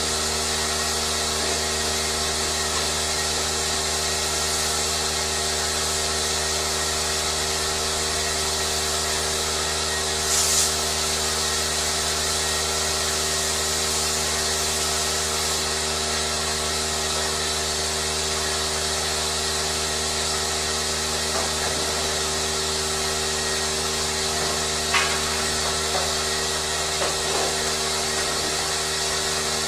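A machine running steadily: a constant multi-tone hum under a strong hiss, unchanged throughout. A short, brighter scrape comes about ten seconds in, and a sharp click comes near the end.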